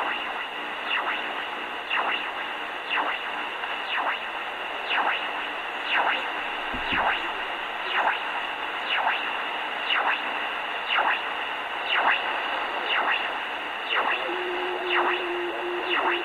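Shortwave signal on 4575 kHz through a Grundig G8 Traveler II portable radio's speaker: a chirp that sweeps down in pitch about once a second, over steady static hiss. A steady low hum joins in near the end.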